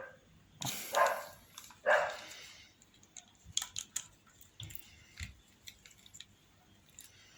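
A dog barking three times in quick succession, followed by a few seconds of light clicks and taps.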